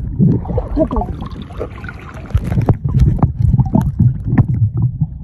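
Muffled underwater sound of a snorkeler swimming right beside the submerged camera: a low rumble of moving water with many short knocks.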